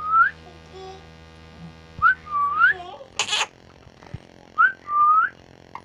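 A pet parrot giving short pure whistles that dip and then rise in pitch, four of them, with one short harsh squawk about halfway through.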